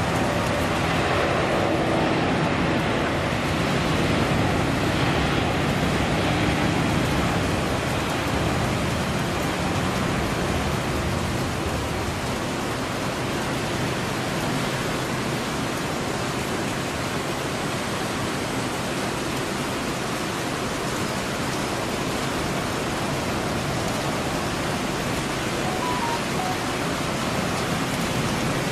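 Airbus A350-941 with Rolls-Royce Trent XWB engines at takeoff thrust: a steady, loud rush of jet noise as it accelerates down a wet runway, lifts off and climbs away. A few faint tones show in the first several seconds before the sound settles into an even rush.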